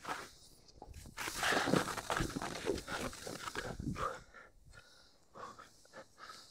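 A skier moving through deep powder snow: irregular swishing and crunching of skis and body in the snow for about three seconds, then fainter scattered crunches.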